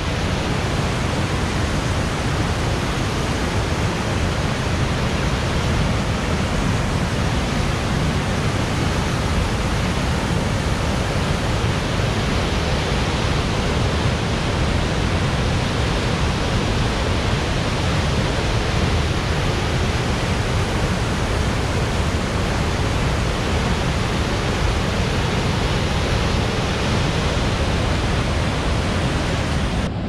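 Waterfall in full spring flood, swollen with melting snow: a loud, steady rush of water that holds even throughout.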